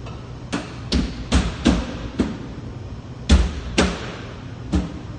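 A series of about eight heavy thumps, irregular but roughly two a second, with a pause of about a second near the middle, over a steady low hum.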